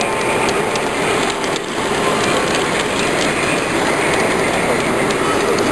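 G-scale model logging train rolling past on the track, its wheels clicking over the rails and its drive whirring steadily.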